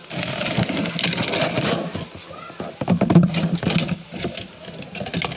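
Orange plastic lamp casing being handled and prised open by hand: rubbing and scraping of plastic for the first couple of seconds, then a run of sharp clicks and knocks as the halves come apart.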